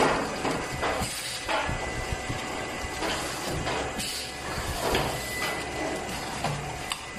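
Automatic thick-paste filling and packaging machine running, with a steady mechanical hum under a faint high tone and short hissing bursts about once a second as its air-driven sealing jaws work through the bagging cycle.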